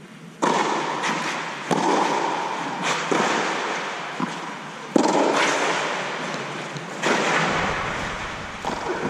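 Tennis ball struck by rackets and bouncing during a rally, a sharp pop every second or two. Each hit leaves a long echo under the inflated dome over the indoor clay court.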